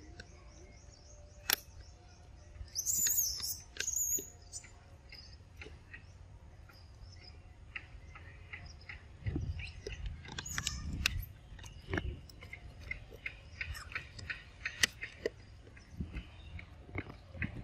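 Birds chirping in the background, with scattered sharp clicks and smacking mouth sounds from a macaque eating a ripe mango. The clicks come thicker over the last few seconds.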